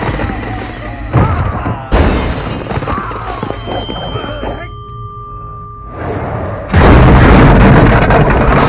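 Movie fight-scene sound effects over a dramatic film score: glass shattering and heavy hits in the first two seconds. The middle drops to a quieter held ringing tone, and a sudden loud crash comes in near the end.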